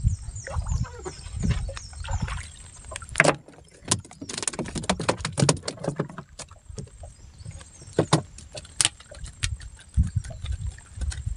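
Water slapping and thumping against a small wooden canoe's hull. Over it come sharp clicks and knocks, densest from about three to six seconds in and twice more around eight seconds, from a handline being hauled in and a fish being handled in the boat.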